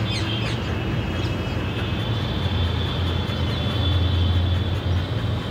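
A passing train running with a steady low rumble that swells after the first couple of seconds, a high steady whine above it. Birds chirp with a few quick falling calls in the first second or so.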